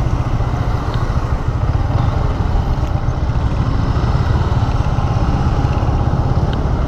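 Yamaha MT-15's single-cylinder engine running steadily as the bike rides slowly through city traffic.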